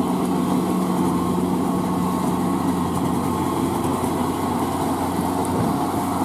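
Kubota L4508VN tractor's diesel engine running steadily under load, pulling a rotary tiller through a flooded paddy field.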